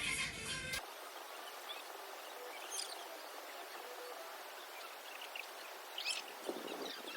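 Background music cuts off about a second in, giving way to steady rural outdoor ambience: a soft, even hiss with a couple of short high chirps, typical of birds.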